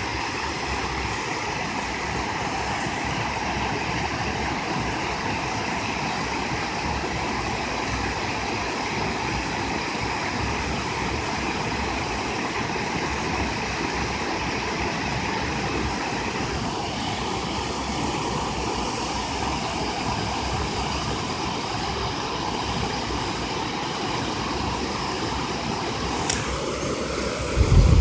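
Steady rush of river water pouring over a low-water bridge crossing. A brief low rumble comes near the end.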